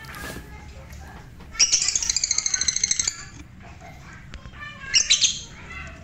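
Lovebird calling: a rapid string of shrill, chattering squawks lasting about a second and a half, then a shorter burst near the end.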